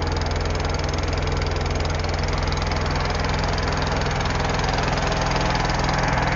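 A wooden lake boat's engine running steadily underway, a low, even pulsing drone with no change in speed.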